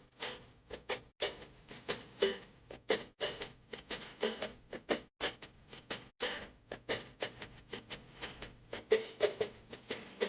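A fast, irregular run of short clicks and taps, several a second, with brief pitched notes now and then.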